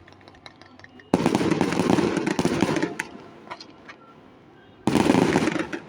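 Fireworks exploding in two loud bursts, full of crackling: the first starts suddenly about a second in and lasts about two seconds, the second comes near the end and is shorter.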